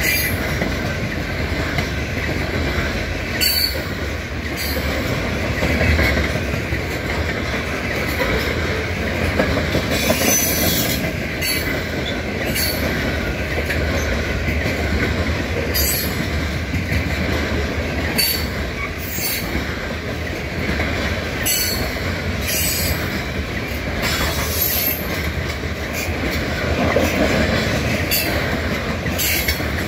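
Covered grain hopper cars of a freight train rolling past: a steady rumble of steel wheels on rail with clicking over the joints, and short high-pitched wheel squeals every few seconds.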